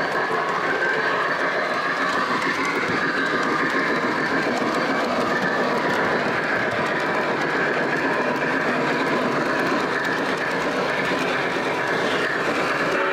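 O gauge model train running along three-rail track, heard from a car in the train: a steady rolling rumble of wheels on the rails.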